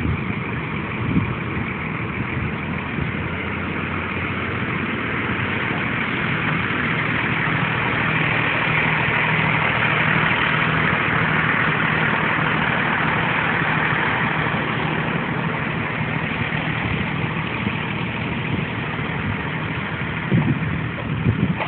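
Car engine idling steadily, a low even hum with some hiss, growing louder toward the middle and easing off again.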